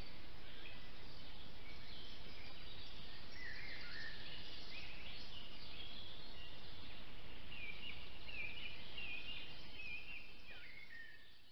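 Several songbirds singing, many short chirping and warbling phrases, over a steady low background hiss; the sound fades out near the end.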